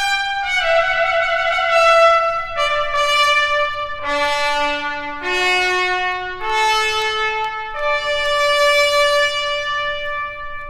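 Solo trumpet playing a slow phrase of long held notes, stepping down in pitch to a low note and then climbing back up to a long final note that fades out.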